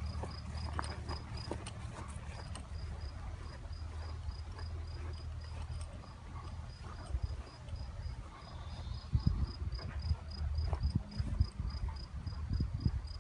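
A cricket chirping in an even, steady pulse, about four high chirps a second, over a low rumble on the microphone. From about seven seconds in, irregular heavy low thuds come in and are the loudest sounds.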